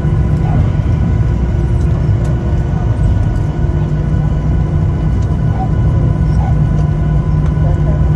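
Jet airliner cabin noise on the ground after landing: a steady low rumble with several steady whining engine tones over it.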